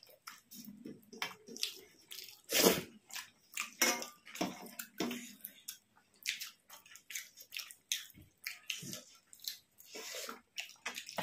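Wet eating sounds of a rice and curry meal: irregular sticky clicks and smacks of food being mixed and chewed, the loudest about a quarter of the way in.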